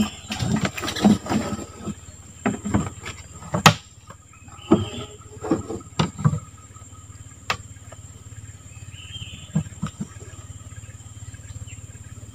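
Knocks and thumps of gear and feet against a wooden boat, many in the first few seconds, then a few scattered ones, over a steady high insect drone.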